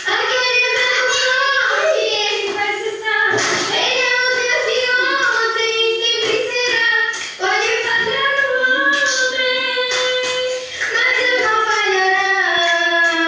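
A young girl singing a song, holding long notes, with short breaks between phrases.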